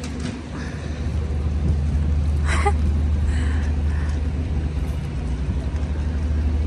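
A steady low engine hum, like a motor vehicle idling, over city street noise, with a brief sharp sound about two and a half seconds in.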